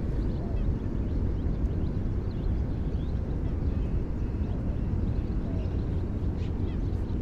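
Outdoor ambience: a steady low rumble, with faint, short high chirps scattered through it.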